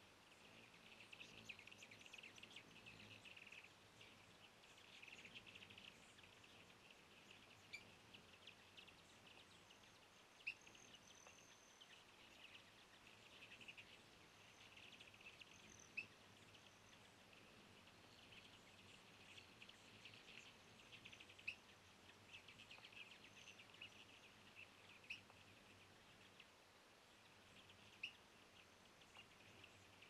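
Faint outdoor chirping of small birds, an uneven chatter of quick high notes with about six sharper single chips spaced a few seconds apart.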